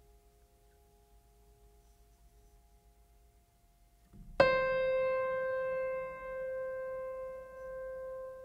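A single struck musical note, piano-like, rings out suddenly about four seconds in and decays slowly with a gentle pulsing, after faint held tones fade away.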